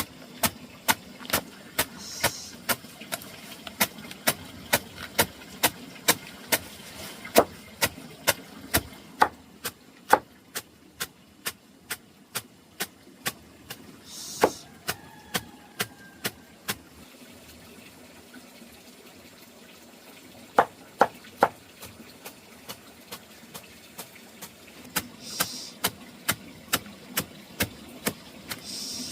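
Repeated sharp knocks, about two a second, stopping for a few seconds past the middle and then going on.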